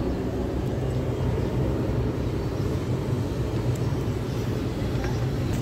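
Steady low machinery hum, with a short knock near the end.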